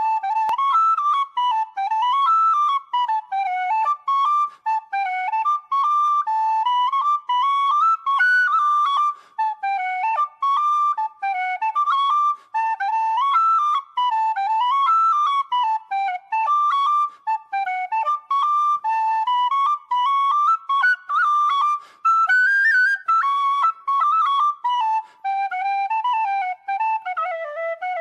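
Background music: a solo flute playing a quick, lively tune without accompaniment.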